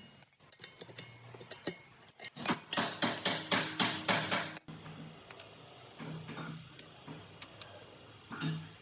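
Metal tools knocking and clinking on metal parts: scattered clicks, then a quick run of strikes, about five a second, for about two seconds, cutting off suddenly. A low hum comes and goes after it.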